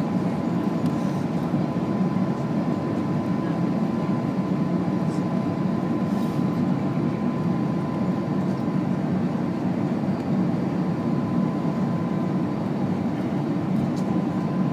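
Steady cabin noise inside an Airbus A330-300 airliner: a constant low rumble of engines and airflow, with a thin steady high tone over it.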